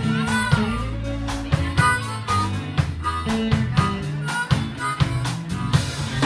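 Live blues band playing: amplified harmonica cupped to a vocal microphone leads with bending notes over electric guitar, a low bass line and a drum kit keeping a steady beat.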